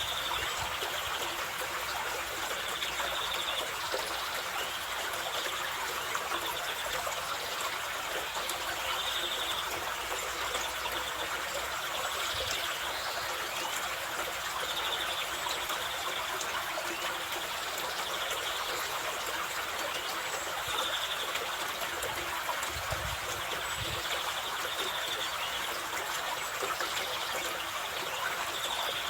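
Carpathian mountain river rushing steadily over rocks, a constant water noise. A bird calls briefly again and again, about every two seconds, over the water.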